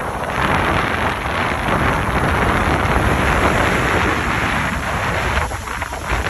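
Wind buffeting the microphone on a moving river boat, over a steady low rumble of the boat's engine and the rush of water. It eases a little near the end.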